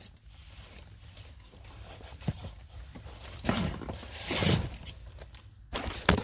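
Rustling and rubbing as records are worked out of a heavy cardboard box by hand, with two louder scraping swells a little past halfway and a sharp click near the end.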